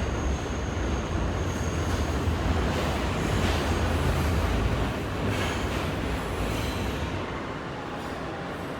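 Inside a Kawasaki R160B subway car in motion: a steady low rumble of wheels on rail and traction motors, with a faint thin wheel squeal early on. The rumble eases about seven seconds in, leaving mostly the car's ventilation hum, as the train slows.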